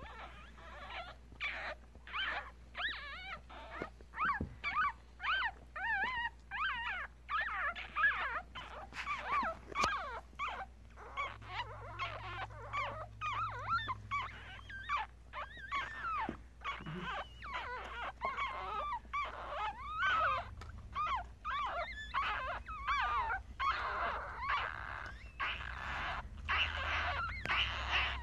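Newborn Yorkshire terrier puppies, a day old, squeaking and whimpering: a steady run of short, high, wavering cries, one after another.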